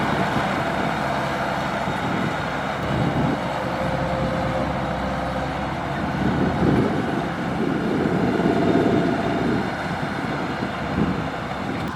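Kubota DC-105X rice combine harvester running as it harvests: its diesel engine and threshing machinery make a steady mechanical din that swells a few times, about three, six and a half and eight and a half seconds in.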